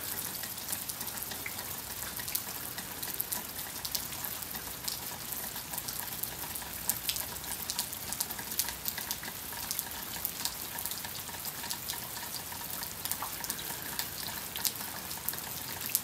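Light freezing rain falling: a steady patter of small drops ticking on ice-coated branches and ground.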